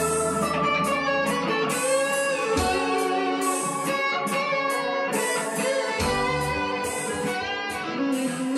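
Electric guitar playing a lead melody with bent, wavering notes over an accompaniment with low bass notes.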